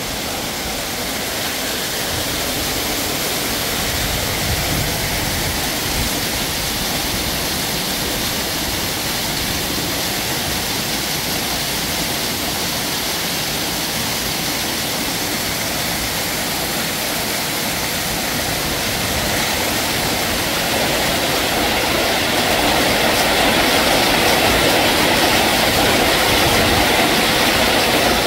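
Small waterfall pouring over a boulder and splashing into a shallow pool: a steady rush of falling water that grows louder in the last third as the water comes closer.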